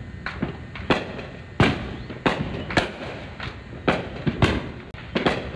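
Fireworks going off in quick succession: about a dozen sharp bangs at irregular intervals, the loudest a little under two seconds in and again past the four-second mark, over a steady background of crackling and popping.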